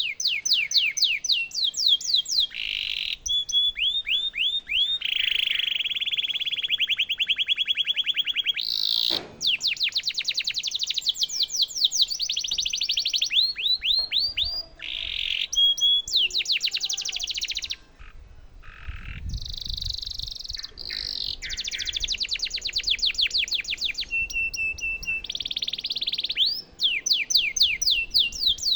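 Domestic canary singing a long, nearly continuous song of fast trills, some held on one pitch and some made of quick falling notes, with short breaks between phrases.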